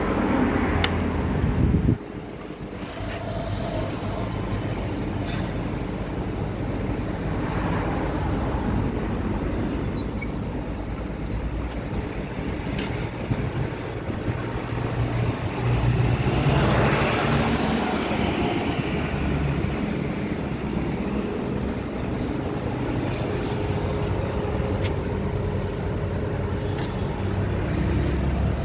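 An engine running steadily: a continuous low rumble with a steady hum in it, dropping abruptly in level about two seconds in.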